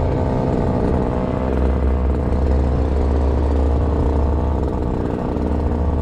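Gas pole saw's small two-stroke engine idling steadily, waiting to cut a tree limb.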